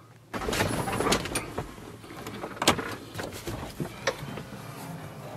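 Rustling and handling noise with scattered knocks and clicks, starting suddenly a moment in, as someone moves from the sleeper of a semi truck's cab into the driver's seat.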